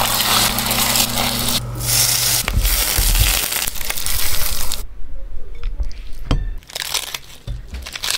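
Egg and shredded crab sticks sizzling in an oiled frying pan while a spatula stirs them, over a low steady hum that stops after about two seconds. The sizzling cuts off about five seconds in, and short crisp crackles of lettuce leaves being torn by hand follow.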